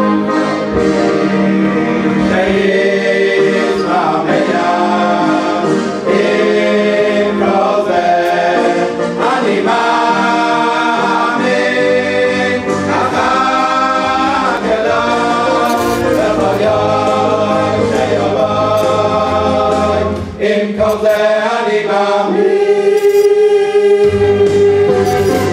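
Choir singing a song in harmony over instrumental backing, with held bass notes underneath.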